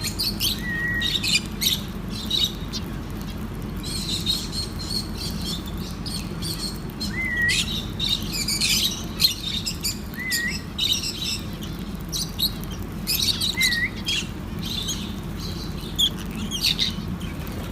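Lovebirds chirping: many short, sharp chirps in quick runs, with a few short whistled notes, over a steady low hum.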